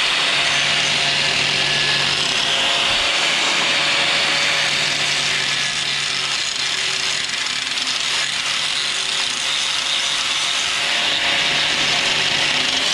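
Angle grinder cutting a V groove with its disc into the steel of an excavator dipper arm along a crack, running steadily under load.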